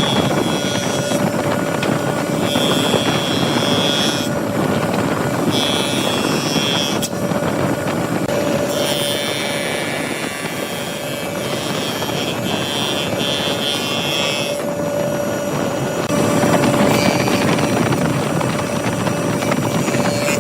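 Wood lathe running with a steady motor hum, with several stretches of higher-pitched scraping that come and go as a turning tool cuts the spinning wood.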